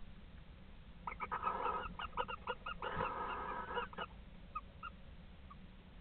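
A pair of barn owls calling during mating: two rasping, hissy screeches about a second long, about one and three seconds in, with short chirping notes between and after them that die away after about five seconds.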